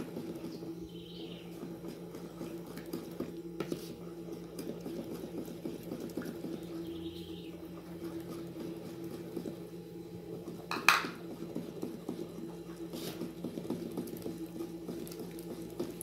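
Wooden spatula stirring and scraping thick carrot-cake batter into flour in a plastic mixing bowl, with a few sharp knocks of the spatula on the bowl, the loudest about eleven seconds in. A steady low hum sits underneath.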